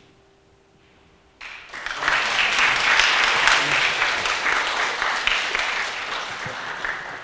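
Audience applauding: after a second and a half of quiet, dense clapping begins, then stops abruptly at the end.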